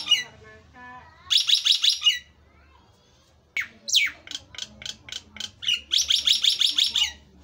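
Caged myna singing: loud bursts of rapid, harsh repeated notes about a second long, with a falling whistle and a run of separate clipped notes between the bursts.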